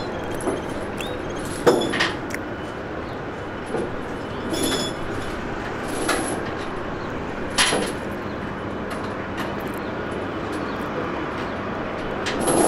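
Scattered metallic clanks and clinks, about half a dozen sharp strikes a few seconds apart, from workers handling tie-down chains on a lowboy trailer, over a steady outdoor background hum.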